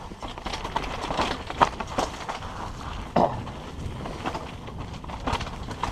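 Mountain bike rattling down a rocky trail: tyres crunching over loose stones while the bike clatters with irregular knocks, two of them louder, about a second and a half in and just after three seconds.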